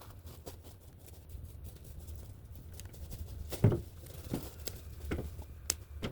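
Movement and handling noise while gathering firewood: scattered light clicks and rustles, then heavier thumps about every 0.7 seconds from midway, over a low steady rumble.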